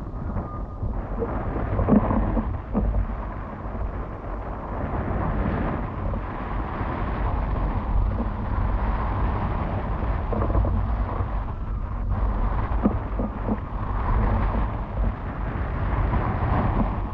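Wind buffeting the microphone of a camera riding on a windfoil, a steady low rumble with a rush of water underneath and a few short knocks.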